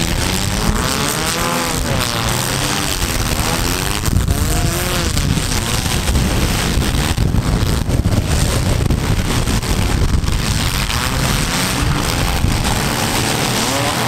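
Several demolition-derby mini-class car engines revving together, their pitches rising and falling over one another, with a few brief knocks among them.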